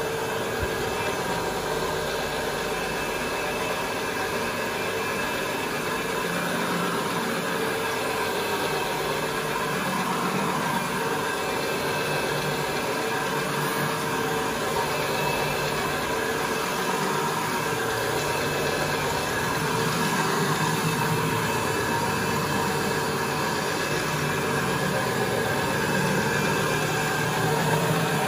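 Counter-rotating brush (CRB) carpet machine running steadily, its electric motor driving two brushes spinning in opposite directions to agitate the carpet fibres. A steady motor hum with a constant whine throughout.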